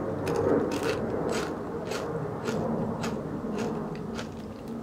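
A recurring mechanical noise of unknown origin: a rhythmic scraping click, a little under two a second, over a steady low drone.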